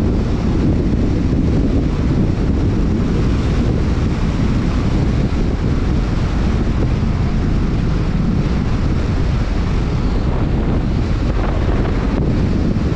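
Steady wind noise on a camera mounted on a Suzuki Baleno cruising along a straight highway, with low road and tyre rumble underneath.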